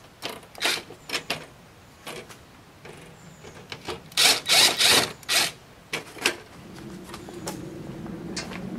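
Cordless drill run in short bursts, driving the licence-plate screws to fix a backup camera to the plate frame, with clicks and knocks of handling between; the loudest bursts come a little past the middle. A steady low hum comes up near the end.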